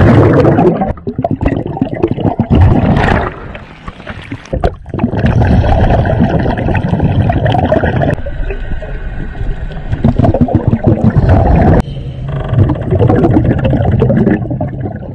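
Underwater noise from a diver's camera: gurgling and rushing water, changing abruptly several times.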